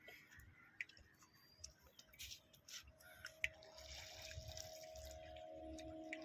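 Faint water sounds: small drips and splashes with scattered light clicks, and a soft steady hum underneath.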